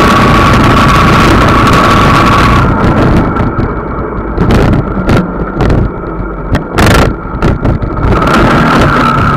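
A vehicle driving along a road: loud wind rush over an onboard microphone with engine noise underneath. About two and a half seconds in, the rush drops to a lower rumble broken by short gusts, then builds again near the end.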